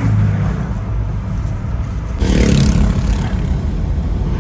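A Toyota van's engine and road noise heard from inside the cabin while driving, a steady low rumble that swells louder for about half a second a little past two seconds in.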